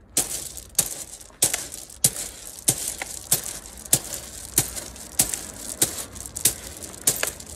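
Hands shooting fingertip-first into a barrel of gravel and crushed rock in an iron-hand tempering drill: a crunch and clatter of stones with each strike, about a dozen strikes in a steady rhythm of roughly three every two seconds.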